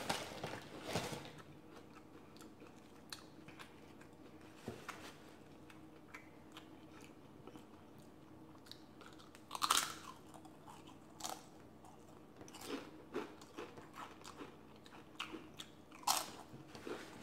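Tortilla chips bitten and crunched, a few sharp bites with quieter chewing crunches in between, loudest about ten seconds in and again near the end. A chip bag crinkles briefly at the start.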